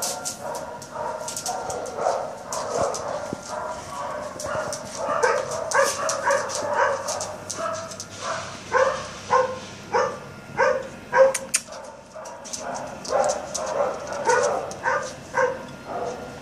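A dog barking and yipping over and over in short, rapid calls, loudest in the second half.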